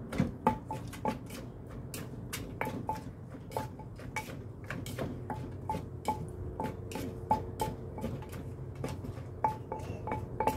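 Wooden pestle pounding papaya salad in a clay mortar: a steady run of sharp knocks, about two a second, each with a short clink.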